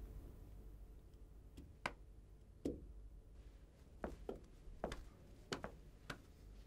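Faint footsteps, a string of soft irregular taps starting about a second and a half in, over a low steady background hum.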